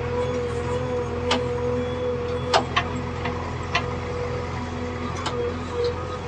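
JCB 3DX backhoe loader's diesel engine running steadily under digging load, heard from the operator's seat, with a steady whining tone over the engine drone. A few sharp knocks stand out along the way as the backhoe works.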